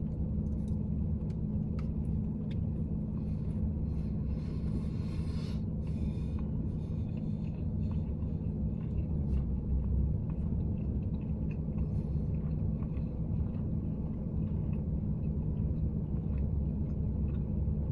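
A vehicle engine idles with a steady low hum, heard from inside the parked car's cabin. There are faint scattered clicks, as of a fork against a plastic food tray, and a brief hiss about four seconds in.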